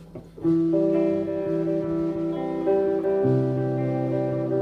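Guitar chords strummed as the instrumental intro of a punk-rock song, breaking off briefly near the start and then ringing on, with a chord change about three seconds in.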